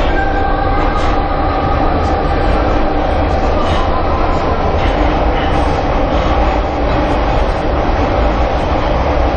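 Pyongyang Metro subway train running, a loud steady low rumble with a faint whine held throughout.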